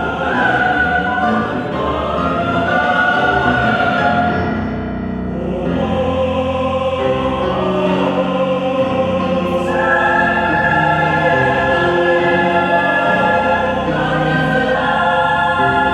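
Mixed choir singing sustained chords with piano accompaniment; the sound thins briefly about a third of the way through, then swells back to full held chords.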